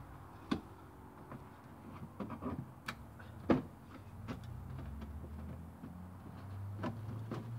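Scattered light clicks and knocks of a car's plastic wheel arch liner and its fasteners being worked loose by hand, with a low rumble in the second half.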